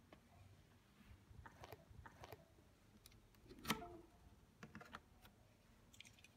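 Faint scattered clicks and taps in a quiet room, with one louder sharp knock a little past halfway through.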